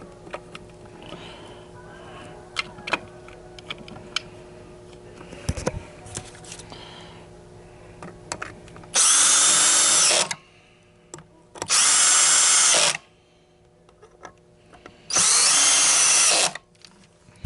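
Cordless drill-driver with a Torx bit driving small screws into a vacuum's steel-and-aluminum housing on its torque setting: three short runs of about a second each, with a steady whine, in the second half. Before them, light clicks from handling parts and screws.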